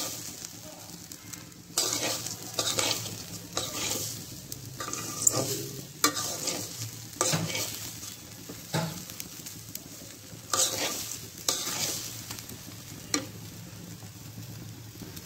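Metal spatula stirring and scraping raw rice as it fries in oil in a karahi, with a steady sizzle underneath. The strokes come irregularly, about one every second or so.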